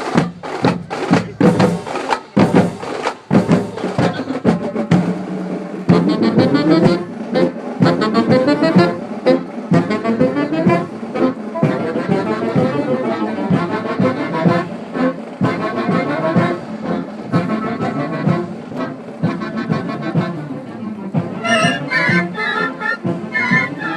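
Marching band: the drums play hard, rapid strikes for the first few seconds, then the brass section comes in about six seconds in with a sustained tune over the percussion.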